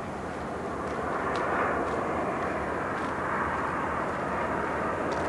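Boeing 767-300 airliner's twin jet engines on final approach with gear down: a steady rushing jet noise that grows louder from about a second in as the aircraft nears.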